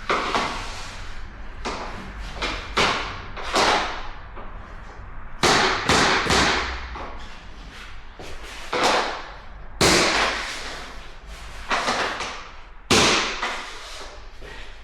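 Mallet blows on a tapping block, knocking vinyl click-lock planks together to seat their joints: a dozen or so irregular blows, each with a short ring-out.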